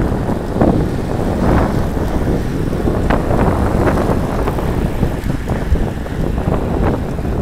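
Heavy wind buffeting the microphone of a camera on a road bike riding at speed, with a few short clicks and rattles.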